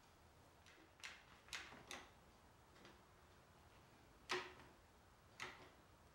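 One-handed quick-release bar clamp being tightened onto a wooden table frame to hold its re-glued joints. The trigger gives a handful of short, sharp clicks at irregular intervals, the loudest about four seconds in.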